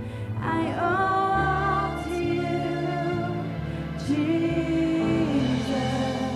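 Christian worship song: singing in long held notes over sustained chords, getting quieter near the end.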